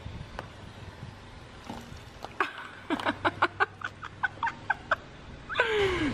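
A person laughing in a quick run of short "ha" bursts, about four a second, for a couple of seconds. Near the end comes a sound that slides steeply down in pitch.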